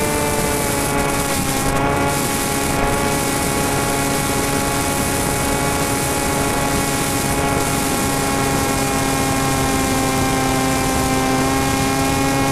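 Motor and propeller of a radio-controlled flying wing in flight, heard from the camera mounted on the aircraft: a steady, even-pitched drone with a hiss of rushing air over it.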